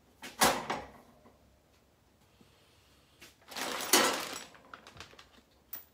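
A single knock about half a second in. Then, about three and a half seconds in, a clear plastic parts bag rustles and crinkles for about a second as it is picked up and handled.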